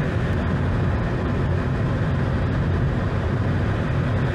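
Steady, low rumbling aircraft engine noise, unbroken and even in level.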